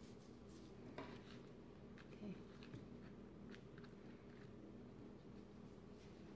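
Near silence: a low steady hum with a few faint, scattered clicks, the clearest about a second in.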